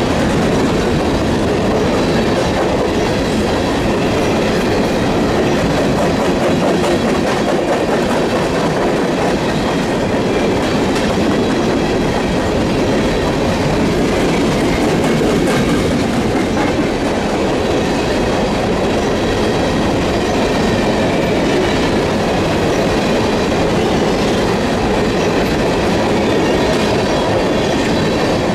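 Union Pacific coal train's hopper cars rolling past close by: a steady rumble and clatter of wheels on the rails, with a faint high squeal from the wheels.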